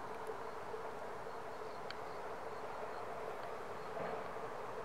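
Outdoor ambience of insects: a steady hum with faint, short, high chirps repeating throughout.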